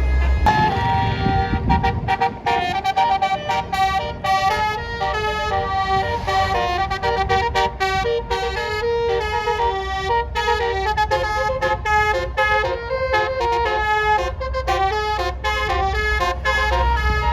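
Bus 'basuri' musical air horn playing a melody, its stacked horn tones stepping from note to note in a quick rhythm without a break.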